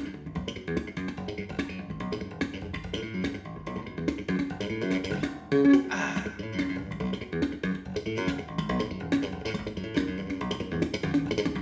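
Jazz-fusion music with busy electric bass and guitar lines, played back through Gauder Akustik Capello 40 bookshelf speakers.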